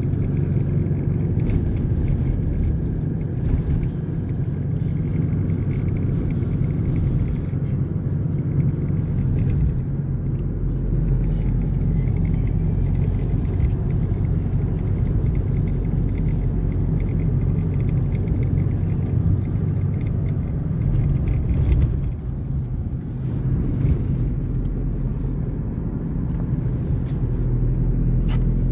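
Car driving along, heard from inside the cabin: a steady low rumble of engine and road noise.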